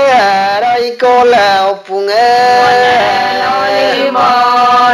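A voice chanting a traditional Adi abang/ponung song in long held, bending melodic lines, with short breaks for breath between phrases.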